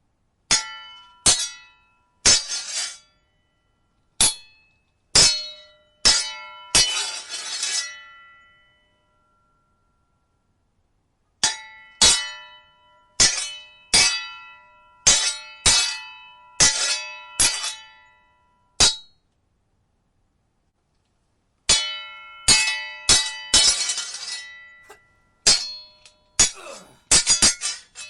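Steel sword blades clashing: sharp ringing clangs in quick flurries, with a few longer blade scrapes, broken by two pauses of two to three seconds.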